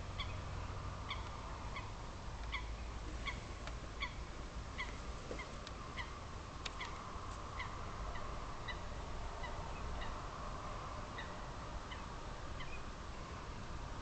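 Birds calling: short, evenly repeated calls, about one to two a second, thinning out near the end, over a steady background murmur.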